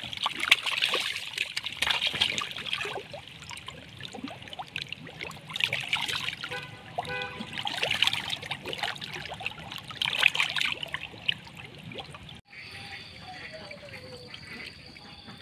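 A dense crowd of catfish thrashing at the water surface: continuous wet splashing and slapping that surges louder every couple of seconds. It stops abruptly about twelve seconds in, leaving a quieter stretch with a faint gliding call.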